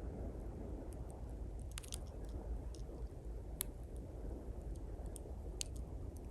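Small campfire of thin pine twigs crackling, with scattered sharp pops over a steady low rush of sea waves.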